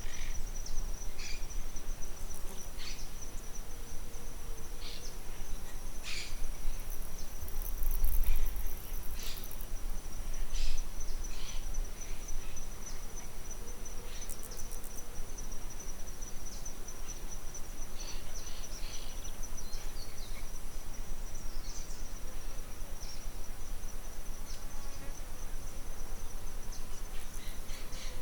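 An insect trilling steadily on one high pitch, with short bird chirps scattered over it. A low rumble swells briefly about eight seconds in.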